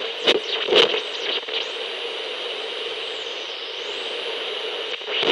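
Radio being tuned between stations: a steady static hiss with crackles in the first second and a half, then thin whistling squeals that glide up and down as the dial moves. It cuts off suddenly at the end.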